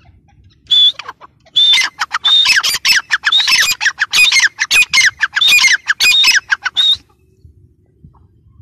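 Gray francolin calling loudly: a short note about a second in, then a fast run of harsh, repeated notes with falling slurs lasting about five seconds, stopping near the end.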